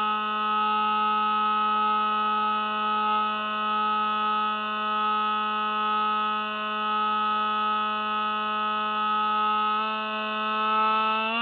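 Spy Hawk FPV plane's electric motor and propeller heard from its onboard camera: a steady whine in flight, stepping up in pitch right at the end as the throttle is opened.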